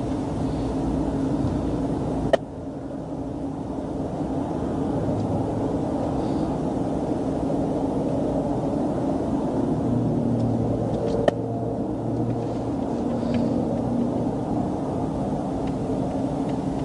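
Steady vehicle and traffic rumble at the roadside, with a faint steady hum, broken by two sharp clicks, one about two seconds in and another about eleven seconds in.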